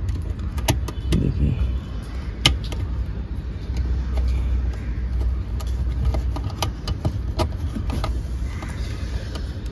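Screwdriver working the screw terminals of a car amplifier's speaker-output block, with scattered sharp clicks of metal on metal, over a steady low rumble.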